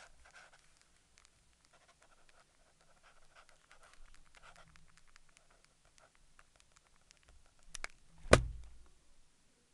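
Faint pen-on-paper scratching and soft paper rustling in a quiet room. Near the end come a few light clicks, then one sharp, loud knock.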